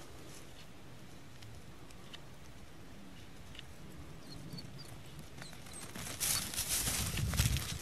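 A quiet stretch with only faint hiss, then from about six seconds in, running footsteps thudding through grass with rustling and handling noise on the camera as the person holding it hurries after the chase.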